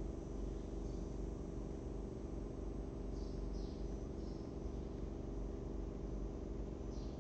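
Steady low electrical hum and hiss from a webcam microphone's room tone. Faint, short, high chirps come through it a few times, about three to four seconds in and again near the end.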